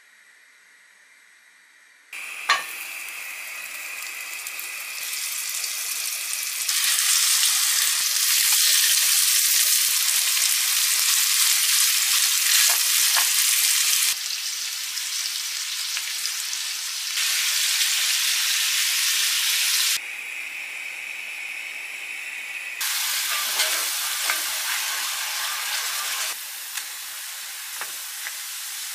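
Sliced beef sizzling in hot oil in a pan. The frying hiss starts suddenly with a sharp click after about two seconds, then steps louder and softer several times; near the end, rice frying in oil in a small skillet.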